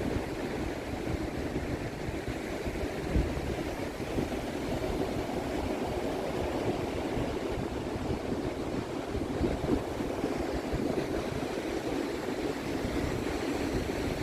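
Sea waves washing onto the beach with the tide coming in, a steady rushing wash, with wind buffeting the microphone in low gusts.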